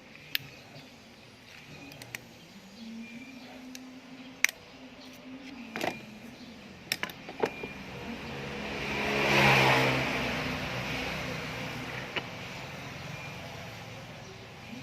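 A road vehicle passes by, its sound swelling to its loudest about nine and a half seconds in and then fading slowly. Before that, a few sharp clicks and taps stand out.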